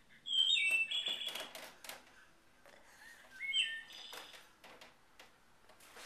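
Audubon singing bird clock playing its recorded bird call, two short chirping phrases a few seconds apart, the first louder. Sharp clicks and taps run through it as the cat paws at the clock.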